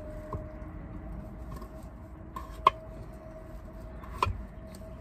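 Kitchen knife cutting small white potatoes on a wooden cutting board: a few sharp knocks of the blade on the board, the loudest about two and a half and four seconds in, over a faint steady hum.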